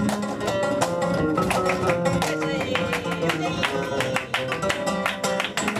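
Live flamenco music in tangos rhythm: a flamenco guitar played with many sharp percussive strikes sounding over and between the chords.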